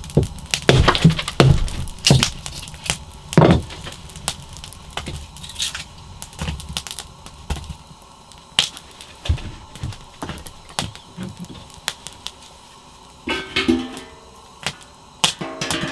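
A run of sharp knocks and clicks, thick in the first few seconds and sparser after. Plucked guitar music comes in near the end.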